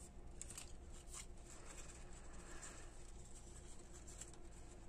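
Faint rustling and rubbing of grosgrain ribbon handled between fingers, with a few soft scratchy touches over a low steady hum.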